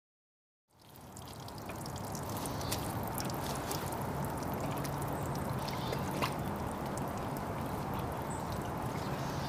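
Water splashing and trickling as stale pond water is scooped out of a plastic kiddie pool, over a steady outdoor hiss. The sound fades in from silence a little under a second in.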